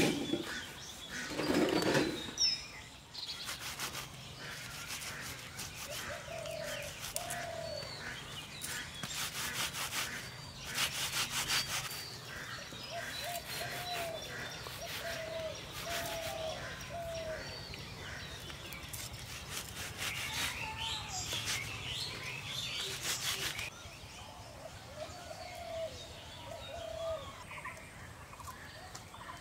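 Outdoor ambience of small birds giving short repeated chirps in little groups. Several rasping, scraping bursts of about a second each come around a third of the way in and again past two-thirds, over a faint steady low hum.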